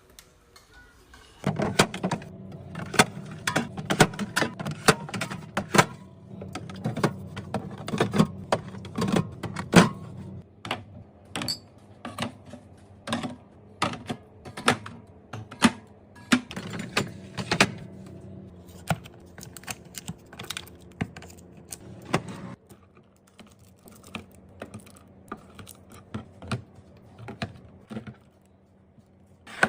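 Irregular clicks, taps and clatter of containers and food items being handled and set into a fridge while it is restocked, over a steady low hum that stops about two-thirds of the way through.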